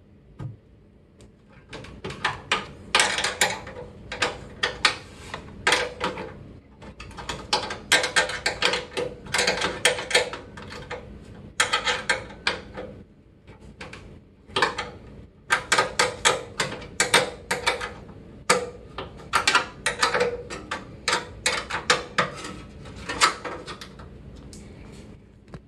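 A 5/16-inch wrench working a microwave magnetron's mounting nuts loose on the sheet-metal plate: runs of quick metal clicks and scrapes, several a second, with short pauses between.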